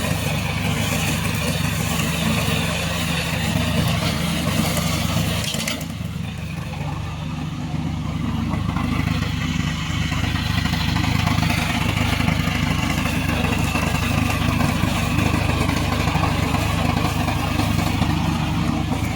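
Remote-controlled lawn mower's engine running steadily, with a brief dip in level about six seconds in.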